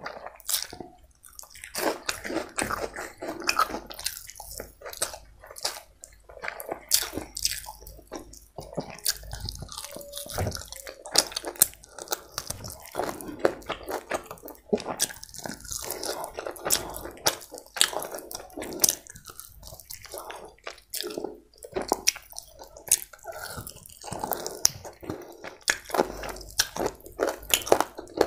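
Close-miked chewing of chicken biryani eaten by hand, with many wet lip smacks and mouth clicks.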